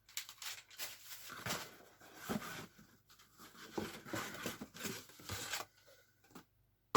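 Packing paper and cardboard rustling, crinkling and tearing as they are pulled out of a shipping box by hand, in irregular bursts for about six seconds. It ends in a single sharp click.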